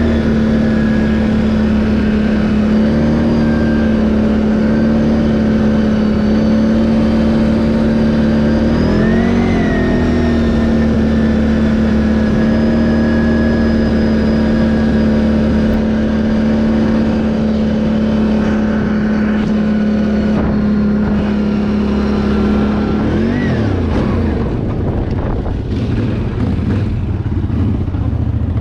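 Can-Am ATV engine running at a steady speed. It revs up and back down briefly about nine seconds in, and again later. After the second rise the engine settles to a lower pitch, with a few knocks and clatter near the end.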